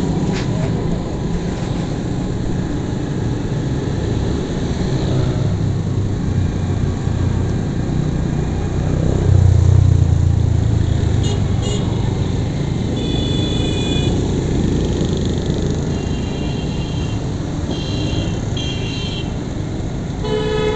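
Motorcycle engine running steadily while riding through city traffic. From about halfway on, vehicle horns beep several times in short toots.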